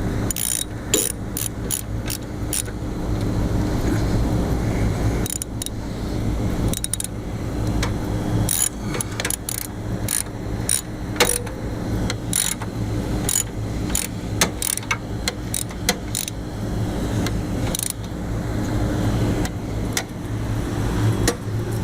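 Metal hand tools clicking and clinking in irregular bursts as the blower motor's mounting bolts are tightened back up to tension a new belt on a rooftop AC unit, over a steady machinery hum with a constant low tone.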